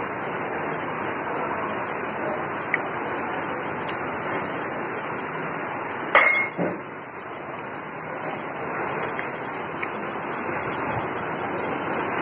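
Steady rushing background noise with a few faint clicks, and one loud sharp metallic clank about six seconds in, from steel dishware knocked during a meal.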